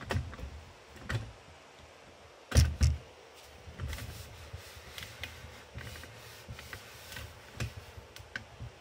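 Handling noise from setting up a camera and a ball chronograph on a wooden bench: scattered knocks, bumps and rubs, the loudest a pair of thuds about two and a half seconds in, then lighter taps and clicks.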